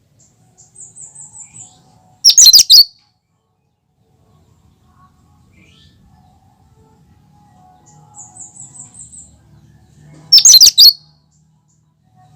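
A cucak kinoi bird singing two matching phrases. Each is a quick run of about six short, high notes followed by a loud burst of rapid chattering notes: one phrase near the start and the other about two-thirds of the way in.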